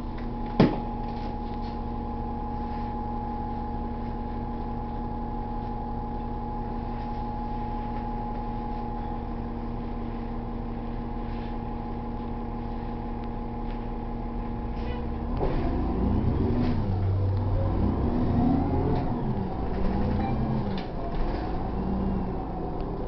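New Flyer low-floor city bus heard from inside the cabin: the engine idles with a steady hum, with one sharp click near the start. About fifteen seconds in, the bus pulls away and the engine grows louder, its pitch rising and dropping several times as it shifts up through the gears.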